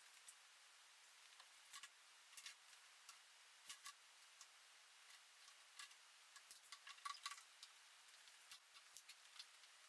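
Near silence broken by faint, irregular light clicks and taps, a small cluster of them about seven seconds in.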